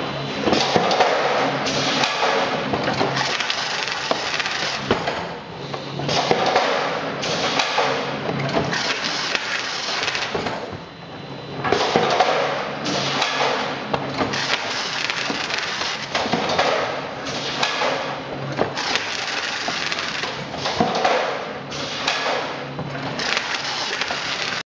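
SIAT SM116 automatic case sealer running as cartons pass through, its flaps being folded shut and taped: a loud clattering, rasping noise full of knocks that swells and dips every few seconds, one surge per carton.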